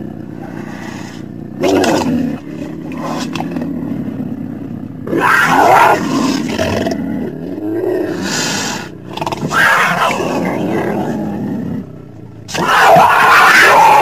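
Cougar vocalizing: a low, continuous growl broken by four louder calls spread through it, the longest near the end.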